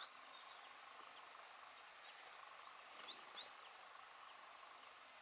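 Near-silent ambience with a few faint bird chirps, short upward sweeps, two of them close together about three seconds in.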